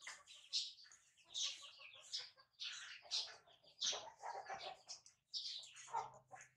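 Quick high-pitched animal chirps and squeaks, several a second, with a faint low steady hum coming in about five seconds in.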